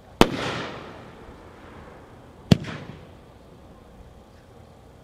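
Phantom X-9, a 9-shot consumer fireworks cake, firing. A shell bursts overhead with a sharp bang and an echoing decay, and a second, shorter sharp bang follows about two seconds later.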